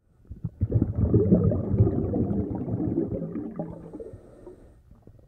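Muffled bubbling, gurgling water that comes in suddenly about half a second in, then fades away over the last couple of seconds.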